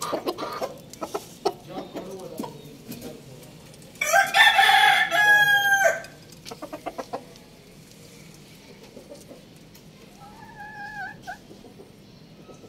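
Rooster crowing once, loud, about four seconds in, the crow lasting about two seconds and breaking up at the end. Short clucking calls come before and after it, and a quieter wavering call follows near ten seconds in.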